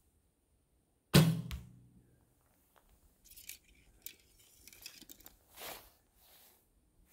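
Barebow shot: the bowstring is released about a second in, a sharp snap with a short low twang ringing off after it. Quieter rustling of clothing and arrow handling follows as the next arrow is readied.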